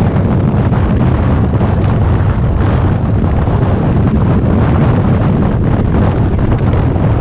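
Steady wind noise on the microphone of a Harley-Davidson motorcycle cruising at road speed, over the low rumble of its engine.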